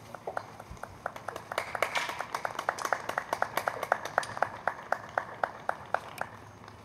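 Sparse applause from a few people clapping. The claps come thickest about two seconds in, then settle to a steady few per second and thin out near the end.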